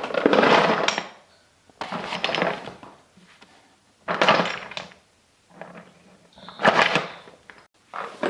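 Toy blocks clattering against each other and a toy bucket as a toddler handles and tips them, in several separate bursts of rattling about a second or two apart.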